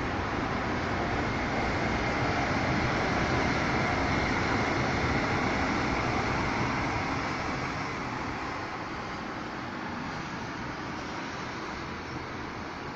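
Rotopress rear-loading garbage truck running, a steady noise that eases off a little after about seven seconds.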